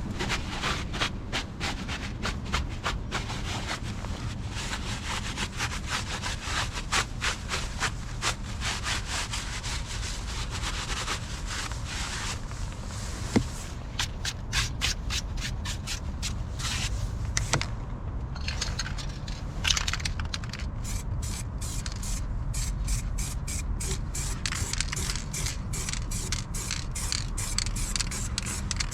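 Rapid, repeated scraping strokes by hand on a hard surface, over a steady low rumble.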